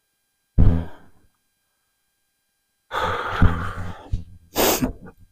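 Things being moved by hand: a thud about half a second in, then about a second of scraping and rattling, and a heavy breath out near the end.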